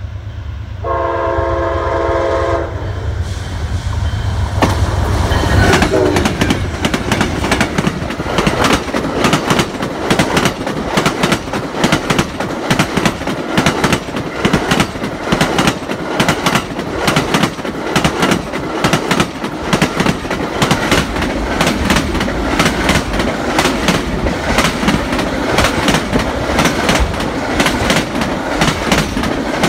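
Amtrak Auto Train passing at speed: its lead GE P40 diesel locomotives sound one short horn blast about a second in over a low engine rumble. From about five seconds on comes the steady, rapid clatter of the Superliner cars' and autoracks' wheels over the rail joints.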